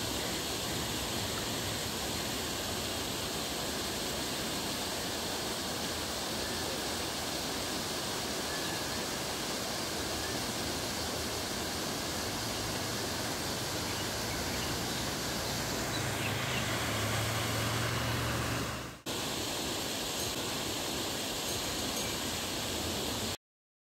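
Steady rushing noise of outdoor ambience, like running water or wind. It is even throughout, with a low rumble swelling just before a sharp break about 19 seconds in, after which the same noise resumes.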